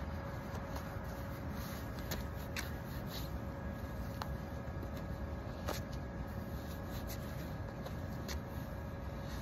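Steady low background rumble with a faint steady hum, broken by a few light, scattered clicks.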